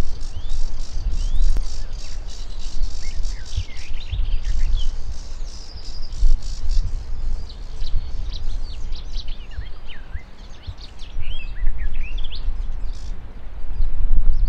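Garden warbler singing: a long run of rapid, varied warbling notes that stops about two seconds before the end, over a steady low rumble.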